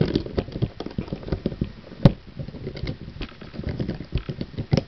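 Small plastic LEGO pieces clicking and tapping as they are handled while a minifigure is fitted into a vehicle's seat: a quick, uneven run of light clicks, with one sharper knock about two seconds in.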